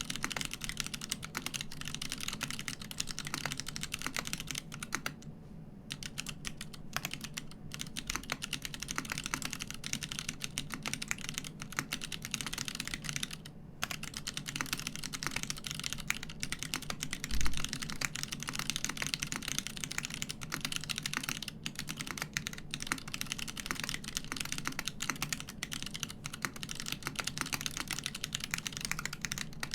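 Fast, continuous typing on a 60% HHKB-layout mechanical keyboard with unlubed Kailh Box Crystal switches, an aluminium plate, a polycarbonate case and GMK keycaps, with dense clacky keystrokes and a couple of brief pauses. A single heavier, deeper knock stands out a little past halfway.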